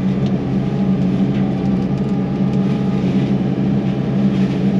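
Yanmar SV100 mulching excavator's diesel engine and hydraulics running steadily under load, an even hum that holds one pitch.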